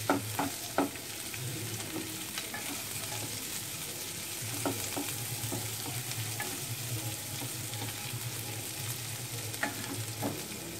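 Chopped onion and garlic sizzling steadily as they fry in hot mustard oil in a pan, with a few sharp taps and scrapes of a utensil against the pan near the start and again now and then.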